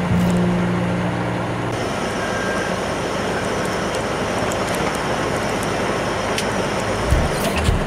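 Tractor-trailer running on the road, a steady mix of engine and tyre noise heard from inside the cab, with the truck driving into a tunnel about halfway through.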